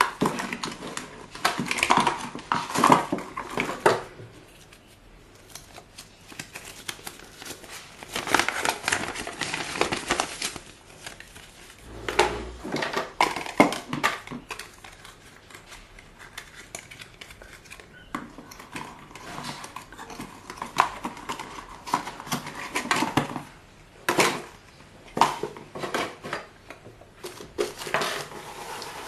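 Small hard plastic objects being handled on a table: irregular clicks, light knocks and rustling that come in bursts of a few seconds with quieter stretches between.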